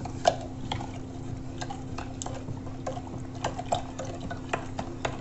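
A wooden spatula stirring sweet lime pulp, sugar and water in a glass jar to dissolve the sugar: irregular taps and clicks of wood against glass with liquid swishing. A steady low hum runs underneath.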